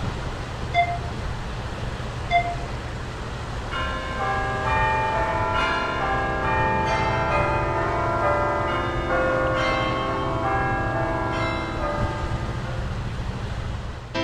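Bells ringing over a steady background rumble: two single strikes in the first few seconds, then many bells sounding together from about four seconds in, their tones overlapping and dying away.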